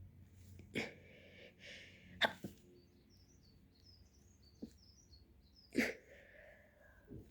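A young girl sneezing three times, a few seconds apart, during an allergy sneezing fit, with a smaller catch after the second sneeze. A faint high warbling runs in the background between the second and third sneezes.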